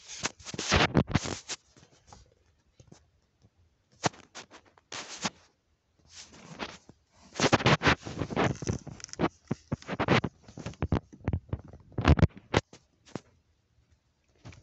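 Phone handling noise: irregular bursts of scratching and rubbing, in clusters with short pauses between them.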